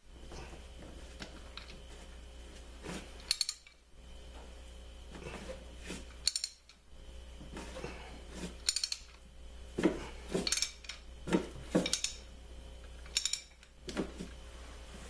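Hand tools clinking and knocking on metal engine parts as a ratchet and socket are worked on tight engine bolts. There are a few sharp metallic clinks with a short ring, several seconds apart, with duller knocks in between.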